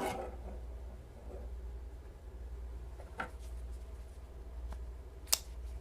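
Low steady room hum with two sharp clicks, a light one about three seconds in and a louder one near the end, as folding knives are handled on a tabletop.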